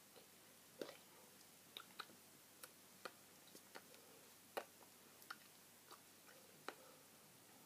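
Near-silent room with irregular soft clicks and taps, a dozen or so, from hands meeting and mouth movements as a person signs in sign language.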